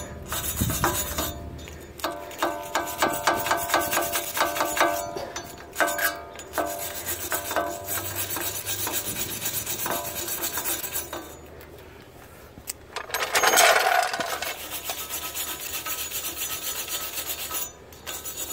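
Flat metal scraper scraping surface rust off the face of an Acura MDX front wheel hub, in quick repeated strokes with a metallic ring. A louder scrape comes near the end, after a short quieter pause.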